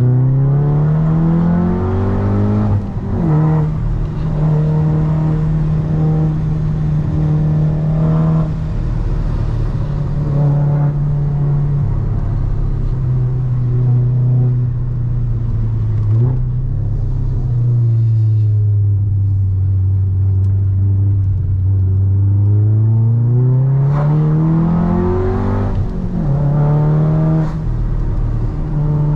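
Golf 7R's turbocharged four-cylinder engine under way: the revs climb and then drop sharply at an upshift about three seconds in and again near the end. In between it runs at steady revs that ease lower through the middle.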